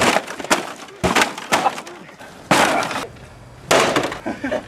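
A mini fridge being smashed apart: several sudden blows with breaking and cracking, landing about a second apart.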